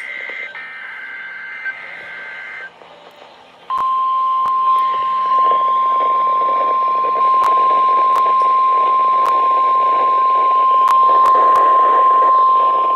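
NOAA Weather Radio emergency alert: the tail of the buzzing two-pitch SAME digital header, then after about a second's pause the single steady 1050 Hz Warning Alarm Tone held for about ten seconds, announcing a flood warning. Radio hiss and occasional static clicks run underneath.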